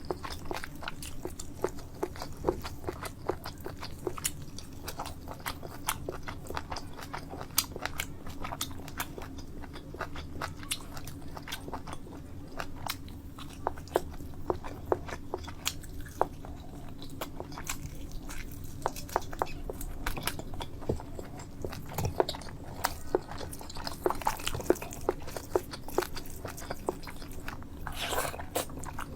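Close-miked eating: a person chewing food with many sharp, wet mouth clicks and smacks, over a steady low hum.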